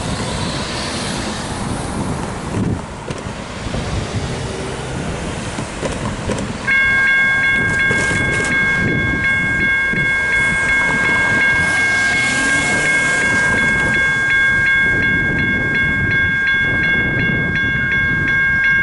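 Railroad crossing warning bell starts ringing suddenly about a third of the way in, a steady run of evenly repeated ringing strikes, signalling the crossing activating for an approaching train. Before it, road traffic passes through the crossing.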